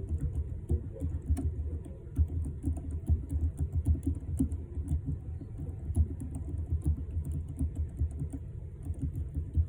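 Typing on a Keychron K3 low-profile keyboard with optical red (linear) switches: a quick, uneven run of key clicks, several a second.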